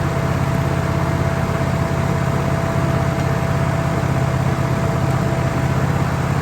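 Wood-Mizer LT15 band sawmill running steadily, its motor and blade sound carrying a steady high whine that stops near the end.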